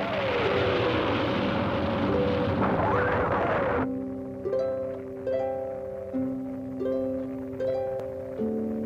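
Cartoon spaceship engine sound effect, a loud rushing noise over music, that cuts off about four seconds in. After it, gentle music of plucked notes, each one starting sharply and fading.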